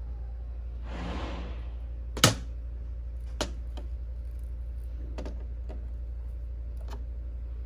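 A steady low hum with a short hiss about a second in, then scattered sharp clicks and knocks: one loud knock about two seconds in and about five fainter clicks after it.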